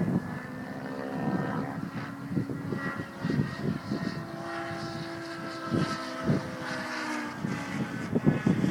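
Radio-controlled model helicopter flying, its power plant and rotors making a steady whine that shifts a little in pitch as it manoeuvres. Heavy wind buffets the microphone with low gusts, strongest at the start and near the end.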